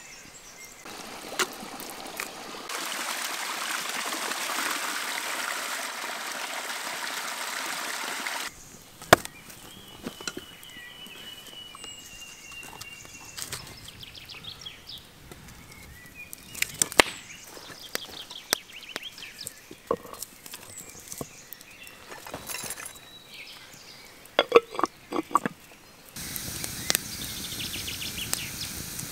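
A steady rushing hiss for about six seconds, then a series of sharp hatchet strikes on firewood, a few seconds apart, as kindling is split. Near the end comes a wood fire crackling, with fine snapping ticks.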